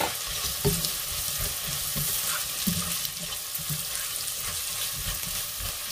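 Diced smoked sausage and onions sizzling in butter in a nonstick pot, with a steady hiss, while a silicone spatula stirs them, knocking and scraping softly against the pan at irregular moments.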